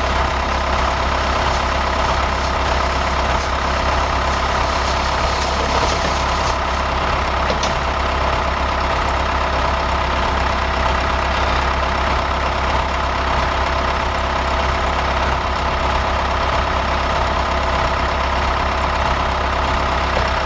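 Farm machinery engine running steadily at an even speed, with no change in pitch.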